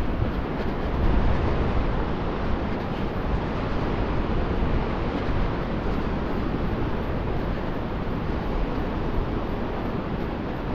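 Steady outdoor ambient noise: an even rumble and hiss, heaviest in the low end, with no distinct events.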